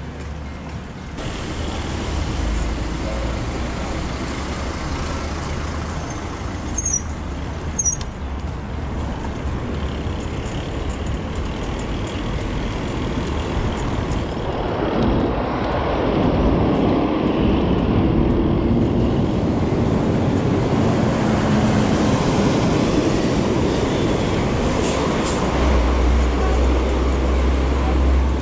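Wind rushing over the microphone and road noise while riding a bike along a road, getting louder about halfway through.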